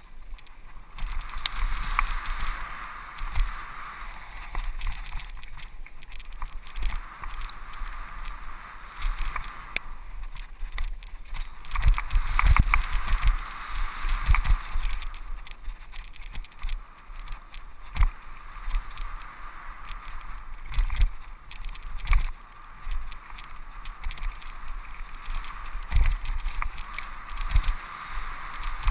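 Mountain bike ridden fast over dirt singletrack: a steady rolling rush from tyres and drivetrain, with rattles and knocks as the bike jolts over bumps and roots, heaviest in a cluster around the middle and in single jolts later on.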